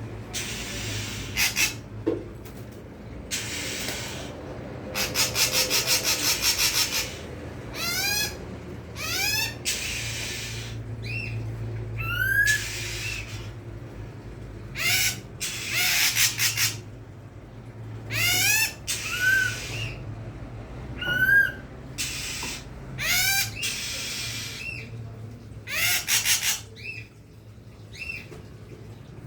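Songbirds calling over and over: short rising whistled chirps mixed with loud harsh rasping bursts and a fast rattling trill lasting about two seconds, with a faint steady low hum underneath.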